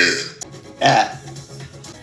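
A woman burping: a long burp fading out just after the start, then a second, shorter burp about a second in, over background music.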